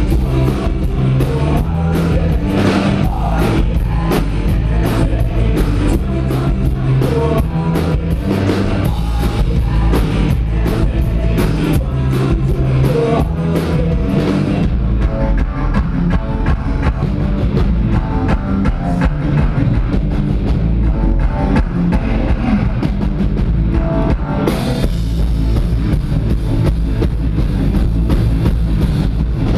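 A live band playing a rock song with drum kit, bass and electric guitar. About halfway through the high, crisp drum hits drop away for around ten seconds, then the full band comes back in near the end.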